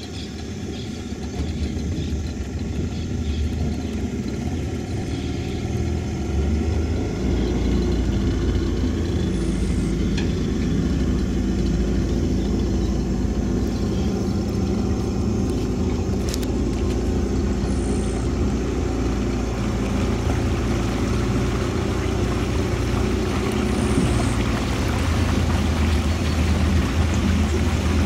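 Motor of a small wooden riverboat running with a steady low drone that picks up about seven seconds in as the boat gets under way, with water rushing past the hull growing louder toward the end.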